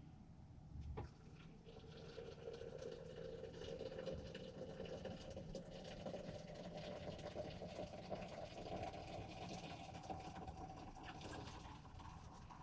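Water pouring into a container, filling it; the tone climbs steadily in pitch as it fills.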